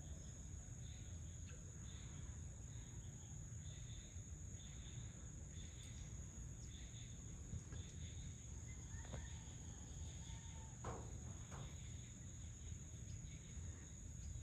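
Insect chorus: a steady high trill with shorter chirps pulsing over it, over a faint low rumble. A few brief sharp sounds come about two-thirds of the way through.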